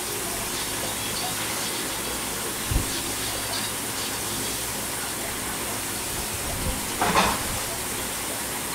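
Steady background hiss, with a short low thump about three seconds in and a brief rustle near the end.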